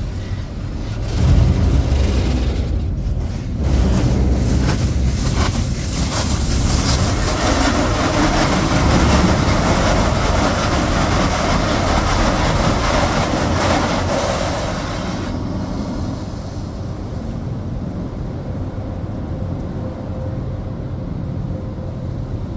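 Water from an automatic car wash's spray jets hitting a car's windshield and body, heard from inside the car as a loud steady rush. It stops about fifteen seconds in, leaving a quieter steady low rumble.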